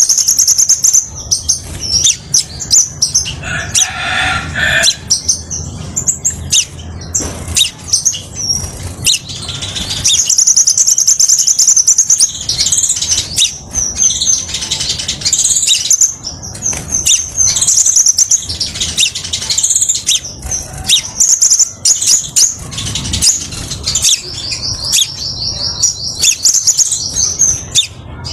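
Crimson sunbird singing: a long, loud run of high, rapid twittering trills, one phrase after another, with a lower, rougher call about four seconds in.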